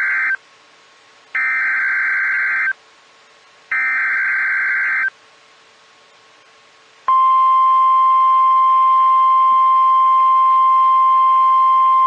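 Emergency Alert System SAME header data bursts from NOAA Weather Radio: the end of one harsh, buzzing digital burst, then two more about a second and a half long with short gaps between them. After a pause of about two seconds the 1050 Hz warning alarm tone starts as a single steady high tone.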